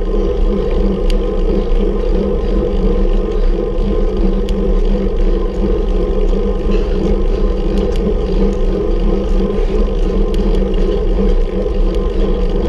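Steady riding noise of a bicycle climbing, picked up by a camera mounted on the bike or rider: a continuous drone with a few faint ticks.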